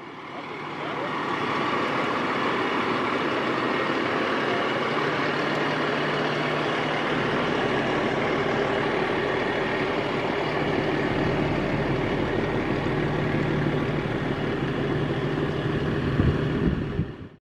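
Fire truck's diesel engine running, growing louder over the first couple of seconds and then holding steady, before cutting off suddenly near the end.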